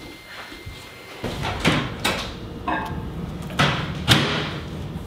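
Kitchen cupboard doors and household things being handled: a run of about six sharp knocks and clacks over a few seconds. A low steady hum comes in about a second in.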